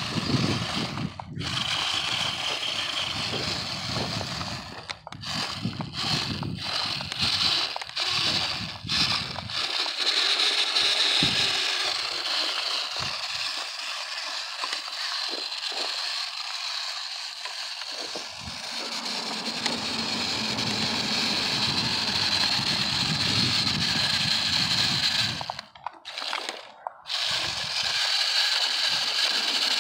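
Small electric RC rock crawler driving over loose gravel: a steady high motor whine with stones crunching and scraping under the tyres, cut by a couple of brief dropouts near the end.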